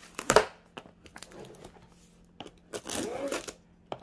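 Knife slitting packing tape along the seam of a cardboard box, with scraping and small taps, and one sharp knock on the box about a third of a second in.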